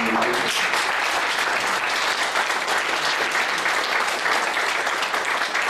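Audience applauding steadily, a dense patter of many hands clapping in a room.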